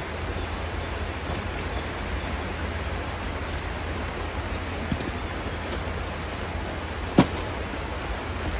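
Steady heavy rain, an even hiss with a low rumble beneath it. A single sharp tap stands out about seven seconds in, with a fainter one a couple of seconds earlier.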